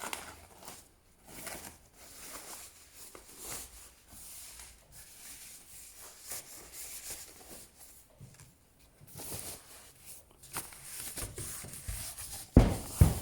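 Rustling and crinkling of packaging being handled while unwrapping loudspeakers, with a heavier thump near the end.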